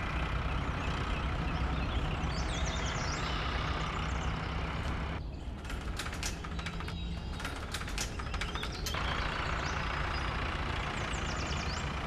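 Cartoon sound effect of a combine harvester's engine running with a steady low rumble. From about five seconds in, a roller garage door rattles down with a quick run of metallic clicks for about four seconds.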